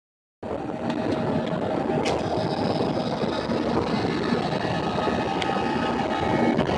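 Steady airliner cabin noise: the engines running and the aircraft rolling along the runway, heard from inside the cabin through the window seat, with a couple of faint clicks.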